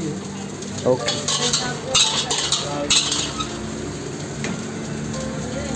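Metal ladle scraping and clanking against a black wok while rice is stir-fried over a gas flame, with a sizzle underneath. Sharp scrapes come about one, two and three seconds in.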